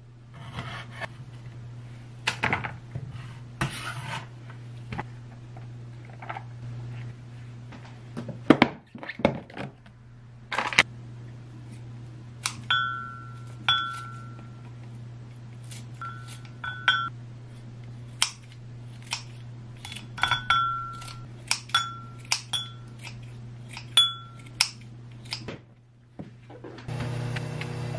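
Kitchen knife slicing sausage with knocks on a wooden cutting board, then kitchen scissors cutting kimchi into a glass mug: about a dozen snips, each with a short metallic ring, among clinks of tongs and glass. A louder steady sound starts just before the end.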